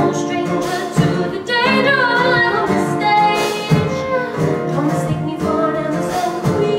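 A group of voices singing together, with a woman's voice standing out, over a full musical accompaniment: a song from a musical.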